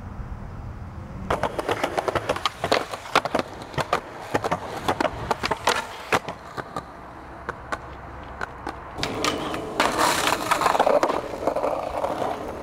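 Skateboard on concrete and asphalt: a run of sharp clacks and knocks from the board's wheels and deck, then from about nine seconds in a longer, steadier rough rolling noise.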